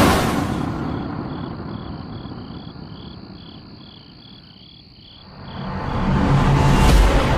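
Crickets chirping in short, regular pulses, two or three a second, as a night ambience. Over them are two dramatic whooshing swells: one fades away over the first few seconds, and another builds from about five seconds in to a peak near the end.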